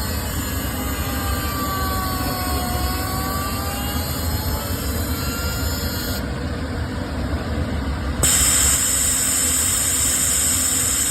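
CNC glass sandblasting machine running: a steady low rumble with faint whines gliding down and up in pitch. About eight seconds in, a loud hiss cuts in and holds.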